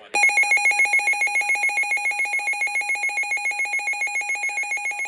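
Weather radio alert alarm sounding for a severe thunderstorm warning: a loud, rapidly pulsing electronic beep that starts a moment in and keeps going, growing slightly quieter.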